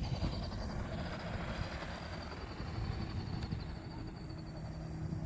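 Motor running steadily with a low rumble and a faint, wavering high whine that fades out about three seconds in.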